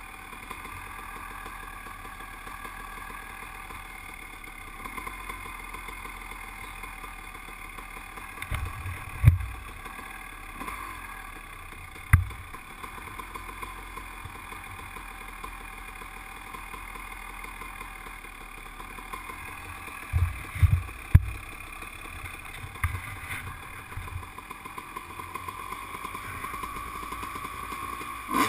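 ATV engine idling steadily, broken by a few sharp low thumps in the middle.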